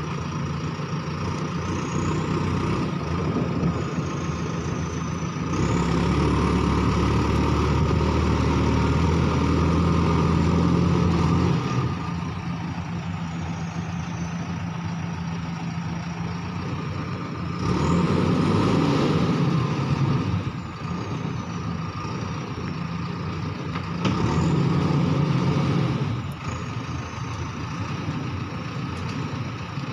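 Backhoe loader's diesel engine running steadily, revving up under load in three louder spells (one of about six seconds, then two shorter ones) as the machine works its way down a steep slope of loose earth and rock.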